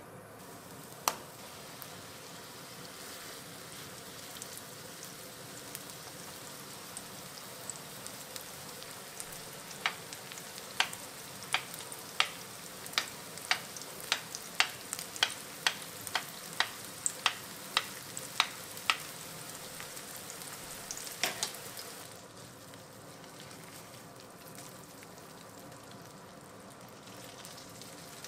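Hamburg steak patties sizzling in oil in a non-stick frying pan. From about ten seconds in comes a run of sharp ticks, roughly two a second for about nine seconds, as a thin metal skewer is pushed through the patties and taps the pan bottom. After about twenty-two seconds the sizzle is a little quieter.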